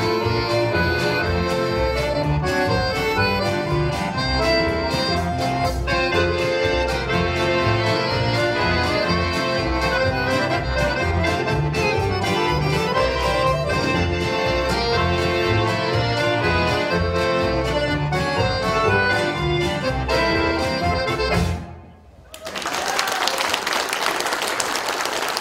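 Two accordions, one of them a Roland digital accordion, play a polka with drums, guitar and bass at a steady beat. The tune ends with a final chord about three seconds before the end, and the audience breaks into applause.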